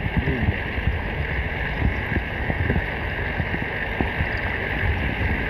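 Muffled underwater ambience picked up by a camera held below a pond's surface: a steady rushing hiss with an irregular low rumble and small knocks of water moving against the housing.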